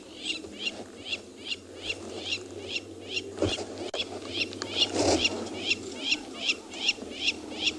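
A bird calling in a steady, even run of short high chirps, about three a second, with a brief low knock about three and a half seconds in and a louder short sound about five seconds in.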